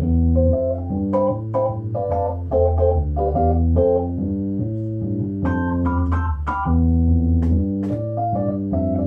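Electronic keyboard on an organ sound: the left hand plays a bass line of held low notes while the right hand plays short chords above it, each starting with a sharp click.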